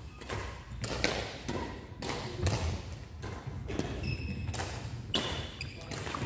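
A badminton rally: a string of sharp thuds and taps from rackets striking the shuttlecock and players' footfalls on the wooden court, with a few short high squeaks about two thirds of the way through.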